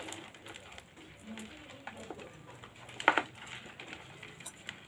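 Crab shell cracking and crunching as it is pulled apart by hand: small scattered clicks and crackles, with one sharper crack about three seconds in.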